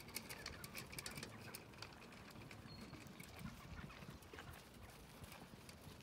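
Light rain falling, raindrops tapping irregularly, thickest in the first two seconds.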